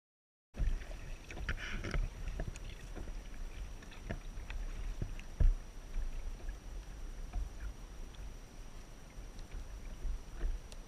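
After a brief dead silence, wind rumbles on the action-camera microphone while water laps against a kayak hull, with scattered small knocks and one louder thump about five and a half seconds in.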